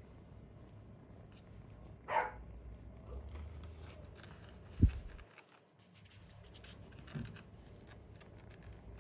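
A short animal call about two seconds in, then a sharp low thump a little before the five-second mark and a softer knock about two seconds later.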